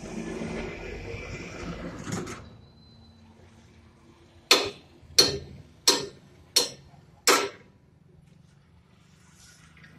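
A hammer striking metal at a truck's wheel hub: five sharp, evenly spaced blows about 0.7 s apart, each ringing briefly. Before them, a rushing hiss lasts about two seconds and then stops.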